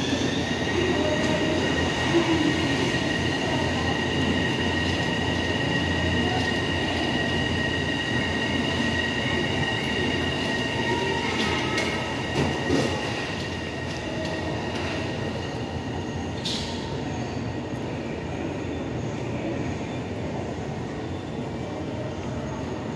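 Kobe Port Liner rubber-tyred automated guideway train running past, with a steady high whine over the rumble of its running gear. The whine fades away about halfway through, leaving the quieter running noise.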